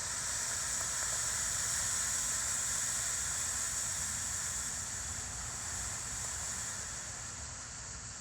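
Smoke-ball ground firework burning with a steady hiss that swells slightly at first and then slowly fades.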